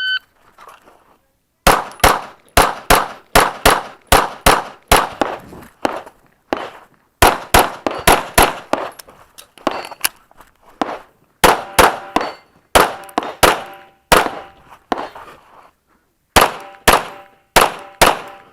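A shot timer's start beep, then a 9mm Smith & Wesson M&P9L pistol firing a long string of shots, mostly in quick pairs with two short breaks. Some of the later shots are followed by a brief metallic ring.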